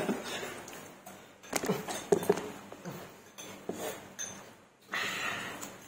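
Scattered light clinks of chopsticks and spoons against ceramic bowls and plates, with a soft rustle near the end.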